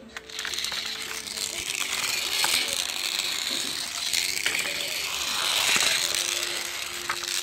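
A small mechanical device running close up, a steady whirring, rattling noise that starts just after the beginning, over faint background music with held notes.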